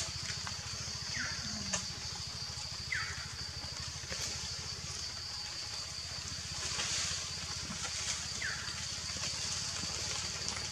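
Outdoor urban ambience: a steady high-pitched drone over a continuous low rumble, with three short falling chirps, about a second in, about three seconds in, and near the end.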